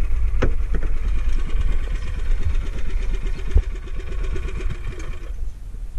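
Small engine of a motorised outrigger boat running at low throttle, a steady rhythmic chug with wind and water noise under it; the engine sound drops off sharply about five seconds in. A sharp knock about three and a half seconds in.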